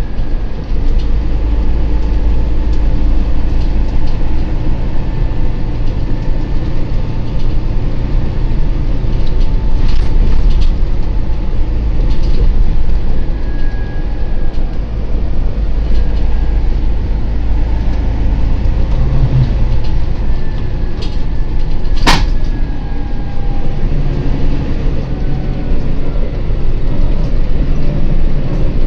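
Interior noise on the upper deck of a Volvo B9TL Wright Gemini double-decker bus on the move: a loud, steady low rumble of the diesel engine and the road, with faint whining tones over it. One sharp knock comes about two thirds of the way in.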